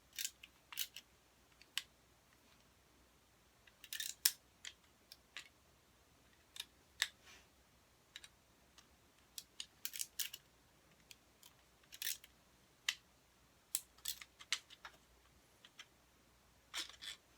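Irregular sharp clicks and taps of hard plastic being handled, about one to three a second with uneven gaps, some in quick pairs, from fiddling with a 3D-printed candy launcher and tic-tacs.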